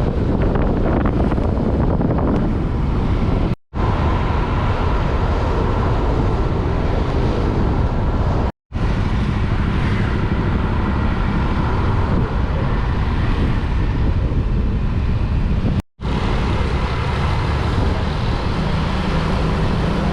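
Wind buffeting the microphone on a moving 125cc scooter, mixed with the rush of road traffic and engine noise. The sound cuts out completely for a split second three times.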